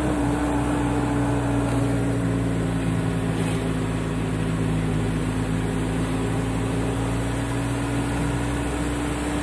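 Car heard from inside the cabin while driving: a steady engine drone with road rumble, its held tone sinking very slightly over the seconds.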